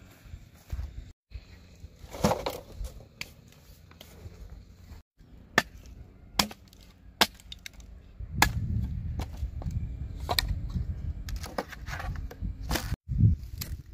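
Machete chopping dry wooden sticks on the ground: a series of sharp single strikes, a second or so apart, with wood knocking and clattering as the sticks are handled. A louder clatter of dry sticks about two seconds in.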